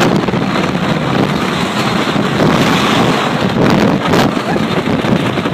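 Wooden roller coaster train running fast over its wooden track, a loud steady rumble with some clatter, under heavy wind buffeting the phone's microphone.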